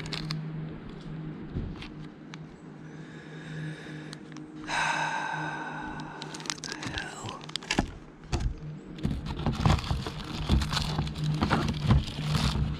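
Clicks, taps and rattles of small metal parts being handled and bent back into shape, over a steady low hum, with a brief pitched squeal about five seconds in. The clicks grow busier in the last few seconds.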